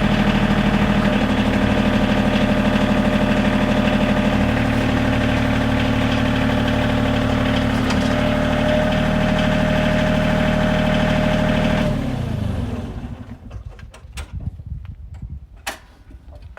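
Bobcat CT2025 compact tractor's diesel engine running steadily, then shut off about twelve seconds in, its pitch falling away as it stops. A few sharp clicks and knocks follow.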